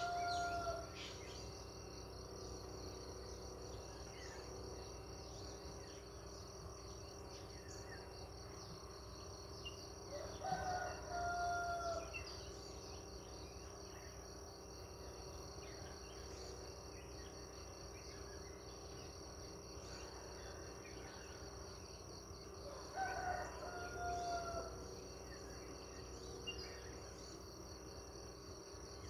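A rooster crowing, each crow a held call of a second or two, heard three times about twelve seconds apart, the first ending just after the start. Under it runs a steady high chirring of insects such as crickets.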